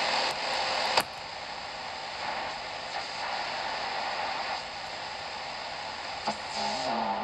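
Static hiss from a Philips D1835 portable radio's speaker as the dial is tuned between stations, broken by a sharp click about a second in. Near the end comes another click, then a low whistle that wavers and then holds steady as the dial nears a station.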